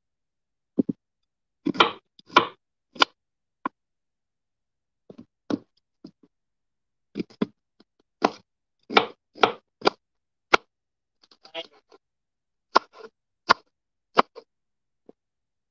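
Kitchen knife chopping petchay (bok choy) on a wooden cutting board: about twenty short, irregular knocks of the blade hitting the board, with brief pauses between strokes.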